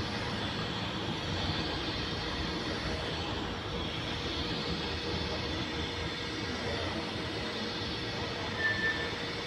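Scratch-start TIG welding arc from an inverter welder burning steadily, a continuous even hiss. A short high-pitched tone sounds near the end.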